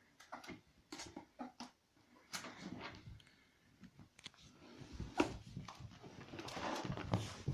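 Pet ferrets scuffling about, a scattered run of short clicks and knocks with a couple of longer rustling, breathy patches.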